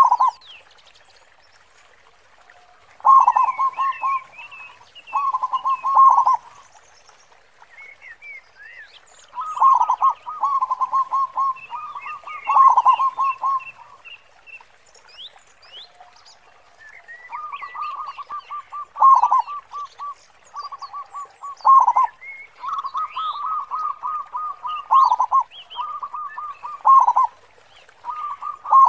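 Local zebra dove (perkutut) singing with a big, deep 'khong' voice: repeated phrases of fast staccato cooing, each about a second or two long, coming every few seconds. Thin higher chirps and whistles come in between the phrases.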